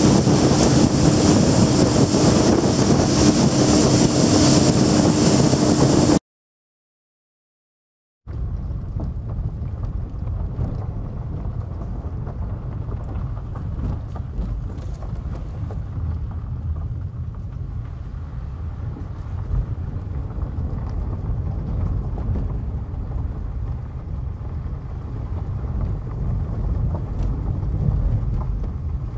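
A motorboat's engine running steadily, with wind buffeting the microphone and water rushing past. About six seconds in the sound cuts to two seconds of silence, then a quieter, steady low rumble continues to the end.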